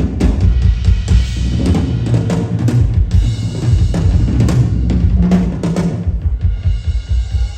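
Live stage percussion: dense drum and struck-percussion hits over a heavy bass-drum beat. About six seconds in the hits thin out and steady held tones come through.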